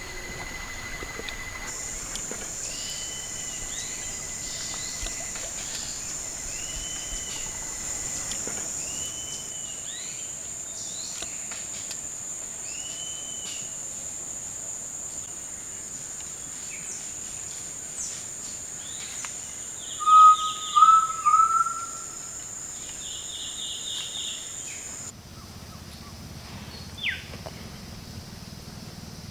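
Tropical forest soundscape: a steady high-pitched insect buzz with a bird's short call repeated every second or two. About twenty seconds in, a bird gives three short rising notes, the loudest sound here.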